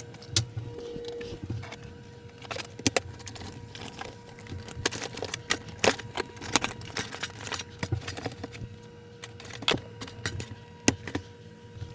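Irregular clicks, knocks and light clatter of equipment being handled while a dishwasher is being got out of its cabinet, over a faint steady hum.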